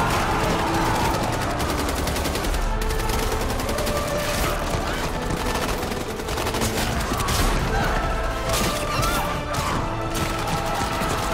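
Volleys of rapid gunfire, many shots in quick succession, over film-score music with sustained held notes.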